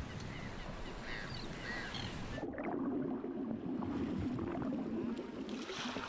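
Sea water washing and splashing. For about three seconds in the middle the sound turns muffled and deeper, then opens up again.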